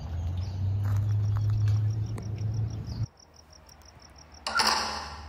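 A steel wire-mesh gate clangs and rattles as it is pulled shut, one loud clatter about four and a half seconds in that rings away. Before it, a steady low outdoor rumble with a high, even chirp about six times a second, cut short about three seconds in.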